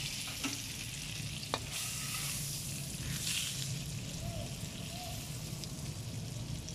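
Butter melting and sizzling in a hot pan with a little olive oil, bubbling steadily as a spatula pushes it around. A couple of light clicks about half a second and a second and a half in.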